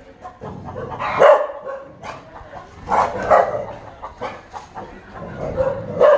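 A small dog barking several times, alarmed by a stuffed toy tiger pushed toward it; the loudest barks come about a second in and again around three seconds in.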